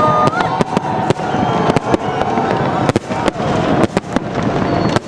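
Fireworks display: a dense run of sharp bangs and crackles from bursting shells, several each second.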